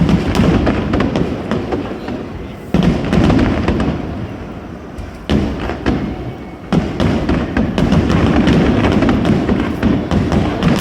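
Aerial fireworks bursting, four big booms a few seconds apart, each followed by a long crackling tail.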